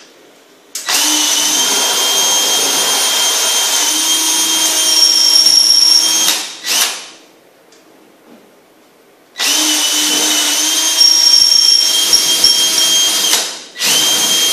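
Power drill boring holes through drywall for toggle anchors: two runs of about five seconds each with a steady whine, each followed by a brief second burst.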